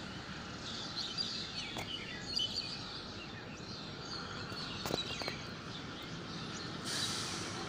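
Outdoor ambience with small birds chirping in short, scattered high notes over a steady background hiss, and a couple of faint clicks about five seconds in.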